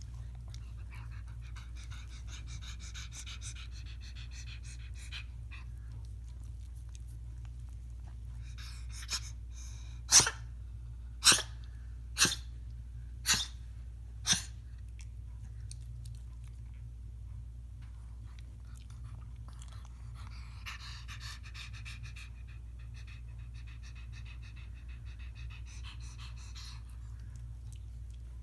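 A dog sneezing five times in a row, about a second apart, with softer breathing noises from the dog before and after.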